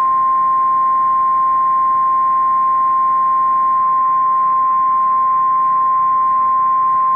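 Emergency Alert System attention signal: a single steady high tone of about 1050 Hz, the weather-radio alert tone, held without a break. It signals that an emergency warning is about to be read.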